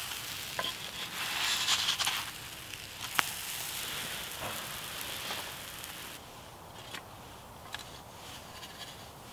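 Pancakes sizzling in hot fat in a cast-iron skillet over a small wood-burning stove, with scattered crackles and one sharp crack about three seconds in. The sizzle fades after about six seconds.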